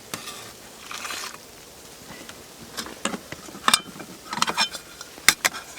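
Rustling, then a run of sharp clicks and light clatters from camping gear and containers being handled by hand.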